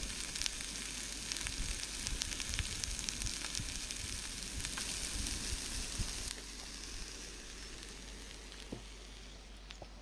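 Sausages and sliced onion frying in a pan on a portable gas canister stove: a steady sizzle with small crackles and pops. The sizzle drops away about six seconds in and fades lower toward the end.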